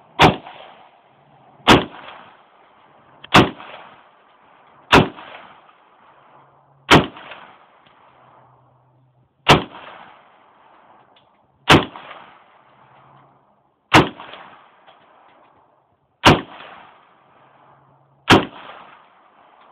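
AR-15 semi-automatic rifle firing ten single shots, each followed by a short echoing tail. The shots come about one and a half seconds apart at first, then slow to about two to two and a half seconds apart.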